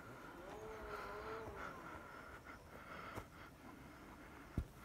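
A drawn-out animal call with a wavering pitch about a second in, over a faint steady high hum. A single sharp knock comes near the end.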